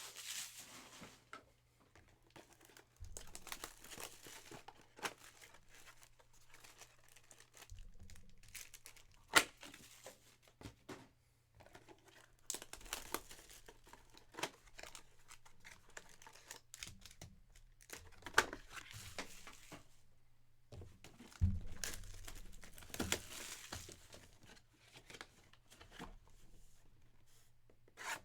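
Sports trading card packs being torn open, their wrappers crinkling and rustling in irregular bursts, with scattered sharp taps as the packs and cards are handled.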